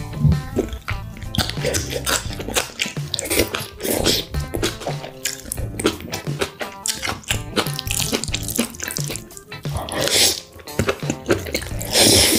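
Wet slurping and chewing of black bean noodles (jjajangmyeon), several noisy slurps, over background music with a steady beat.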